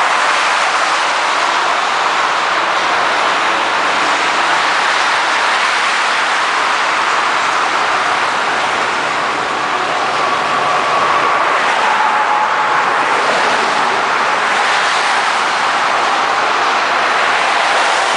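Steady rush of highway traffic: a convoy of tow trucks and cars passing at speed, mostly tyre and engine noise.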